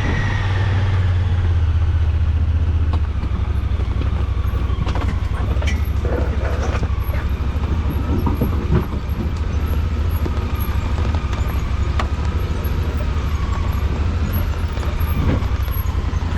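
Honda Pioneer 1000-5 side-by-side's parallel-twin engine pulling under load up a steep, muddy hill, its tires slipping in the mud. The engine note drops about three seconds in and then holds steady, with a faint whine and a few scattered knocks.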